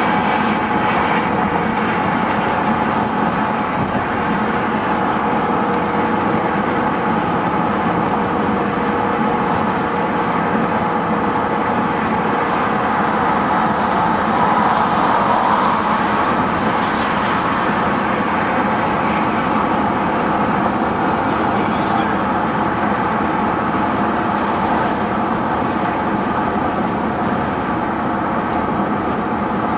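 Steady road and engine drone inside a pickup truck's cabin as it drives on a concrete highway towing a travel trailer.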